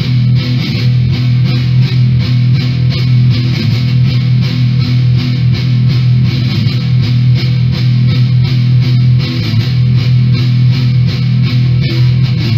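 Background music: a guitar-led rock track with a steady beat over a held low note.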